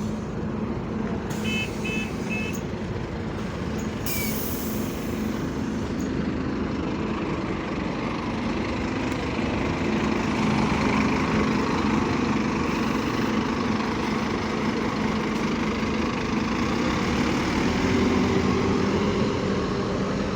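Scania bus engine running steadily, rising in pitch around ten seconds in and again near the end as it picks up speed. Three short high beeps come at about two seconds in, and a short hiss of air at about four seconds.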